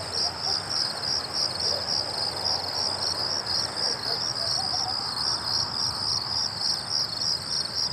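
Crickets chirping in a steady, even rhythm of about three high-pitched pulses a second.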